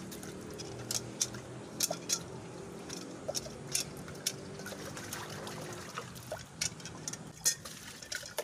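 Water sloshing, splashing and pouring as a metal cooking pot is rinsed out by hand, with sharp little splashes and taps scattered throughout. A low steady hum sits underneath.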